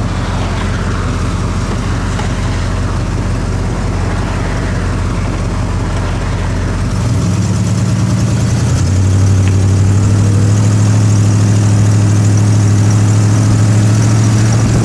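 Oldsmobile Cutlass engine idling with a steady low note, then about seven seconds in it picks up and pulls away, settling into a steady higher drone by about nine seconds. Wind and tyre noise on the fender-mounted camera grow as the car gets moving.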